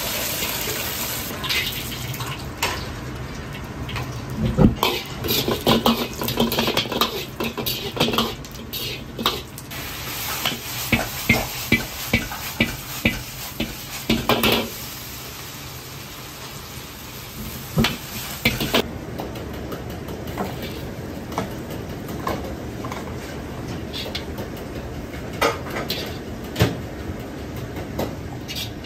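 Hot oil pouring off fried food into a wire strainer over a steel bowl, then a metal wok ladle scraping and knocking against a wok as the food is tossed with sizzling, many sharp clanks in quick succession. Near the end, quieter scattered clinks of plating.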